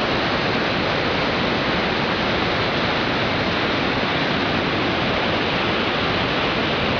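Steady rush of fast-flowing river water, an even hiss that holds at one level throughout.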